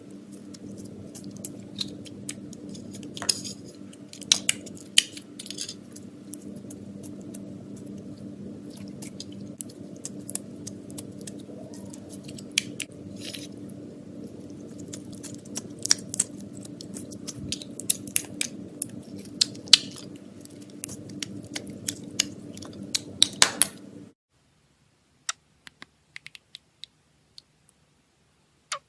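Slime being squished and worked by hand, with many sharp sticky clicks and pops. A steady low hum runs underneath and cuts off suddenly about 24 seconds in, leaving only a few scattered clicks.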